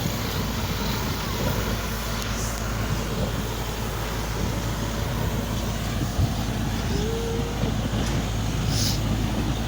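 Borewell drilling rig's engine running steadily under load, a continuous low hum.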